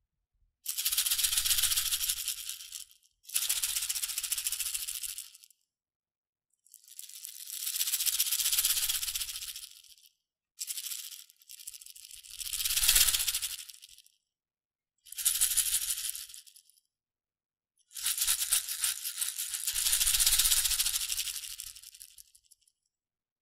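Salt and pepper shakers being shaken, the grains rattling inside. The rattling comes in about seven bursts of one to four seconds with short silent pauses between them, some swelling louder and then fading.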